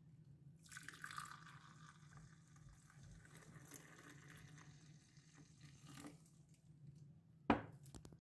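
Milk poured from a jug into a glass mug: a steady splashing pour that starts about half a second in and fades after about five seconds. A single sharp knock near the end is the loudest sound, over a low steady hum.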